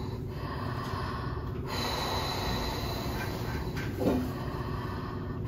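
A woman in labour breathing out hard through pursed lips, a steady rushing breath noise. About four seconds in comes one short vocal sound that falls in pitch.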